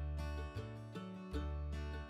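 Background music: quick plucked string notes over a deep bass line that changes note about every two-thirds of a second.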